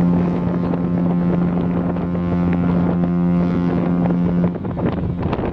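Cruise ship Pacific Jewel's horn sounding one long, low, steady blast on leaving port, cutting off about four and a half seconds in. Wind buffets the microphone throughout.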